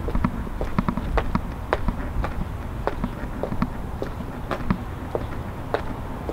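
Footsteps on pavement, hard-soled steps at about two a second, over a low steady rumble.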